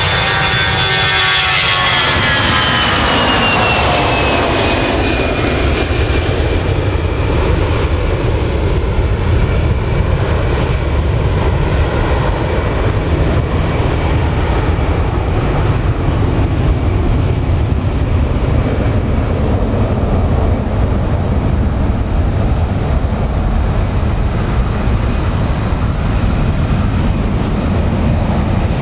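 Airbus A320-200 jet airliner taking off at takeoff thrust: the engines' whine falls in pitch over the first few seconds as the aircraft lifts off and passes, then turns into a steady jet roar as it climbs away.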